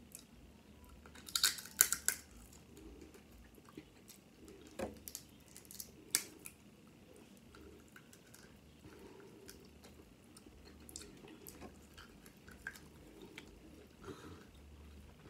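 Crab leg shell cracking and snapping as it is bitten and pulled apart, with soft wet chewing of the meat. A quick cluster of sharp cracks comes about a second and a half in, then single snaps around five and six seconds.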